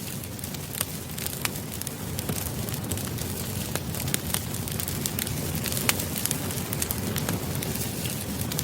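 Campfire burning, a steady low rush of flames with frequent irregular crackles and pops of burning wood.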